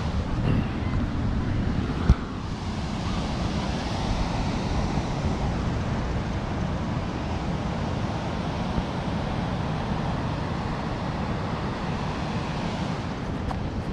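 Wind buffeting the microphone, a steady low rumble, with one sharp click about two seconds in.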